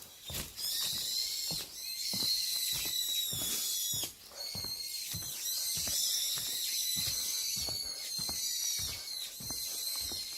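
Footsteps walking on a forest path, about two steps a second, under a steady high-pitched tone that breaks off briefly about half a second in and again about four seconds in.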